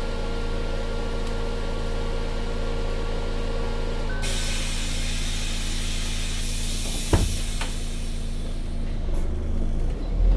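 MAN Lion's City 12C NL330 Efficient Hybrid city bus under way, its diesel engine running steadily. A steady whine stops about four seconds in as a hiss sets in, and there is a single sharp knock about seven seconds in.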